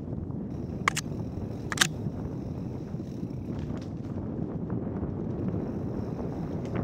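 Mountain bike rolling down a dirt forest trail: a steady low rumble of tyres and wind on the microphone, with two sharp clacks from the bike about one and two seconds in.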